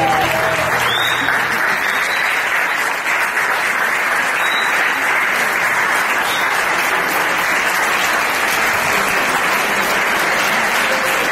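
Audience applauding, a steady crowd clapping that holds at one level throughout.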